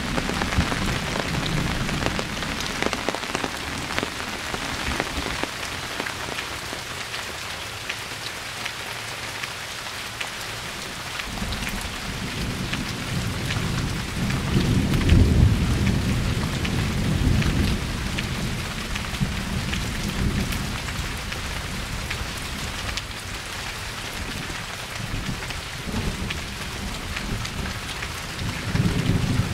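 Steady rain falling, with drops ticking on a nearby surface, under rolling thunder. The low rumbling dies away in the first few seconds, builds again about a third of the way in to its loudest peal around the middle, and returns near the end.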